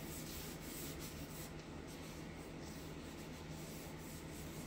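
Gloved hand rubbing and smoothing wet black acrylic base coat across a canvas: a soft, continuous rubbing over a low steady hum.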